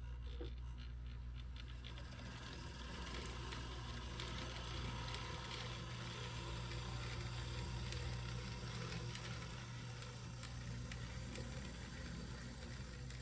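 HO-scale Proto 2000 EMD SD7 model diesel locomotive running on track, its motor and gears whirring steadily with a light rattle. The running is a little noisy, which the owner puts down to old factory grease in the trucks needing to be cleaned out and replaced.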